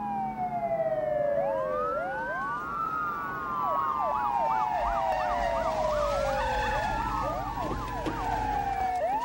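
Several police car sirens sounding at once: overlapping wails that rise and fall, with a fast yelp for a couple of seconds in the middle. A low rumble joins about halfway through.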